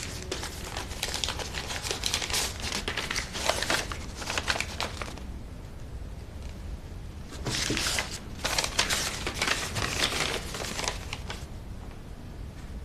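Crinkling and rustling in two spells, the first about five seconds long and the second about four, with a short pause between, over a low steady hum.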